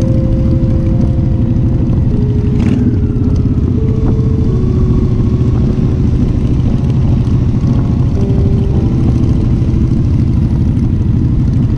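Honda Shadow Spirit 750 V-twin running steadily at cruising speed on the road, its engine rumble mixed with wind and road noise, with a single sharp click about three seconds in. Soft jazz music plays faintly underneath.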